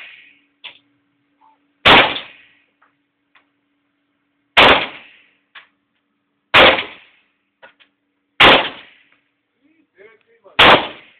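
Tokarev pistol in 7.62x25mm fired five times, single shots spaced about two seconds apart, each a sharp crack with a short echo tail. Faint small ticks fall between the shots.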